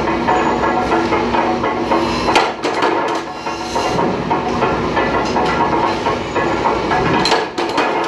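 Workplace clatter: a steady machine hum with repeated sharp knocks and metal clanks over it.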